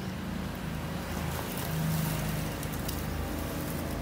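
Steady low engine hum running on through, with a few faint ticks over it.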